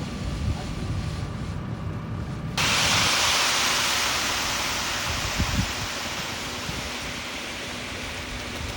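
Concrete mixer truck running with a low rumble. About two and a half seconds in, a loud rushing hiss starts suddenly and then slowly fades.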